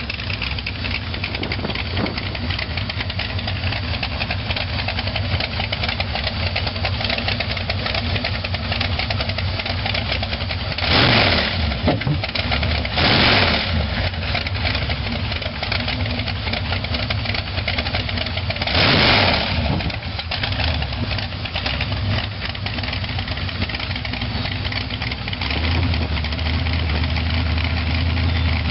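A hot rod engine idling steadily, with about three short, loud revs of the throttle, two close together near the middle and one a few seconds later.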